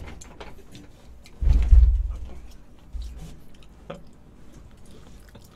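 A heavy low thud about a second and a half in, fading out over about a second, then a lighter knock about three seconds in: a man's body dropping onto the floor as he collapses.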